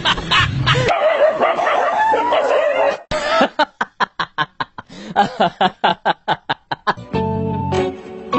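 A dog barking in a rapid string of short barks, about five a second, after about two seconds of wavering high-pitched cries. Background music plays at the start and returns near the end.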